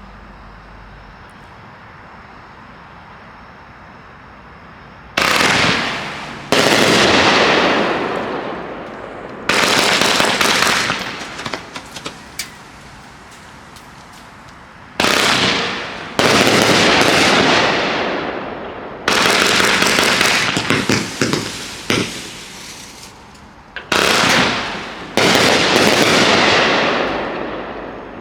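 A 42-shot, 500-gram Great Grizzly Firebird cake firework firing. A low steady hiss runs for about five seconds, then the shots go off at uneven gaps, each a sudden loud blast that dies away over one to three seconds.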